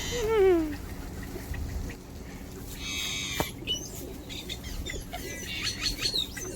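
Birds calling at a lake: a loud falling call in the first second, a higher call about three seconds in, and quick high chirps near the end.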